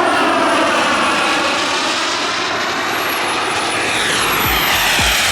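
Turbine-powered RC model jet whining as it passes low on its landing approach. The high turbine whine dips in pitch and then rises again. A music track with a steady beat comes in about four seconds in.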